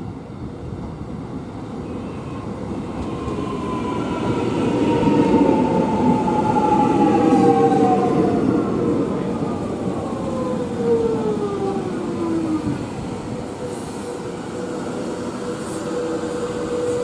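Alstom X'Trapolis electric suburban train pulling in and braking to a stop, its motor whine falling in pitch as it slows over a rolling rumble. A steady hum is left near the end as it stands at the platform.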